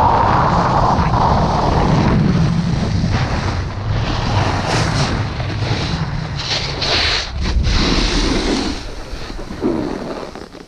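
Wind buffeting the action camera's microphone as a snowboard runs down the piste, with the board's edge scraping over icy, hard-packed snow in hissy bursts during the middle of the run. The noise dies down near the end as the board slows.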